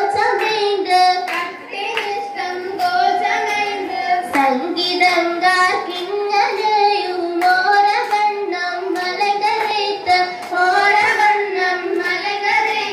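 A group of girls singing a song together in unison, with regular hand claps keeping the rhythm.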